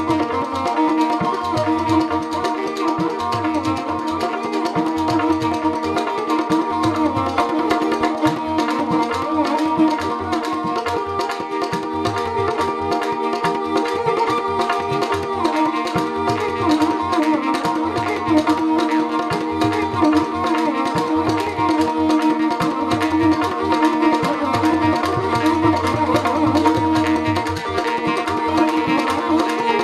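Instrumental Rajasthani folk music: a kamaicha, a bowed folk lute, plays the melody over a drone, with the twang of a morchang jaw harp and a hand drum keeping a steady rhythm.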